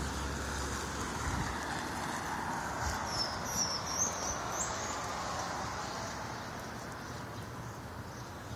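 Steady background rush of wind and street traffic, with a short run of high bird chirps about three seconds in, lasting under two seconds.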